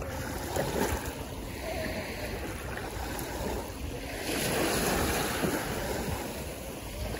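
Small waves lapping and washing up onto a sandy beach, with wind rumbling on the microphone. The wash swells louder for a couple of seconds a little past the middle.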